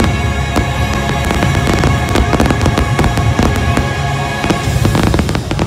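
Fireworks in a dense barrage: many bursts and crackles close together, thickest near the end, over steady show music.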